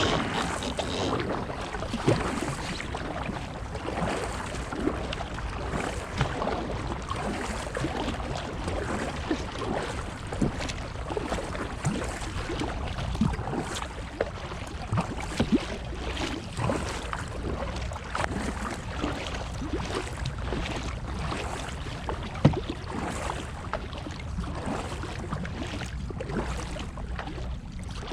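Water sloshing and splashing against a kayak, with irregular small knocks and splashes throughout over a steady wash of water and wind noise.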